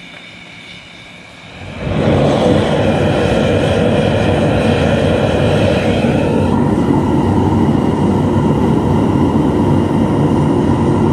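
Blower-fed propane furnace burner running hard: a loud, steady roar that starts about two seconds in, its tone shifting slightly about halfway through, as the aluminum melt is brought up toward pouring temperature.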